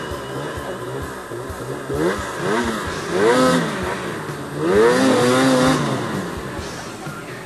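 Snowmobile engine revved in repeated short bursts, its pitch rising and falling with each blip, the loudest and longest about three and five seconds in; the sled is stuck in deep powder and being rocked to free it.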